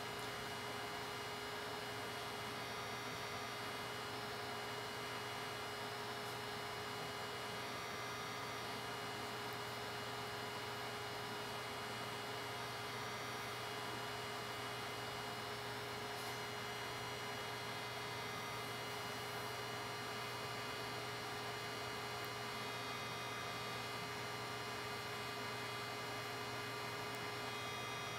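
Steady electrical hum with a faint high whine, unchanging throughout.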